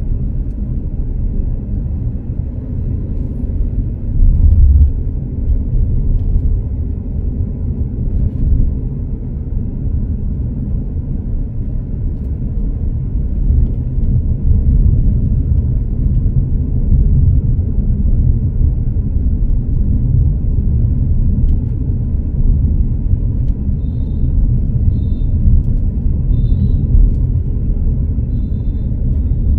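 Steady low rumble of a vehicle driving along a street: road and engine noise, with a brief louder surge about four seconds in.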